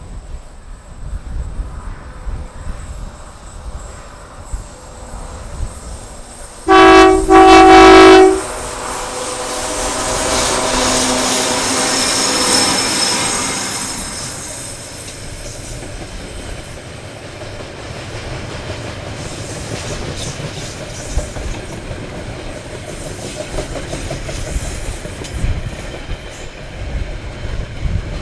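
A train sounds its horn very loudly at close range, a short blast followed at once by a longer one. Its rumble then swells and eases as it passes, leaving a steady rolling noise with the wheels clicking over the rail joints.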